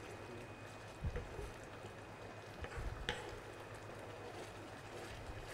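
Wooden spoon stirring simmering risotto in a nonstick frying pan, faint, with a few soft knocks of the spoon against the pan about a second in and around three seconds in, over a steady low hum.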